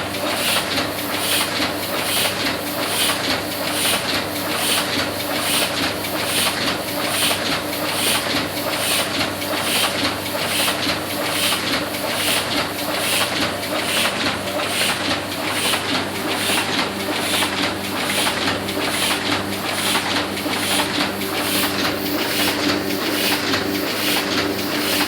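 Heidelberg GTO sheet-fed offset printing press running at speed. Its mechanism beats out a steady, even rhythm of a little under two strokes a second over a constant hum.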